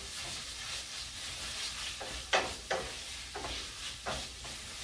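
Ground beef in tomato sauce sizzling in a frying pan as a wooden spoon stirs it, with a few short strokes of the spoon against the pan a little past halfway.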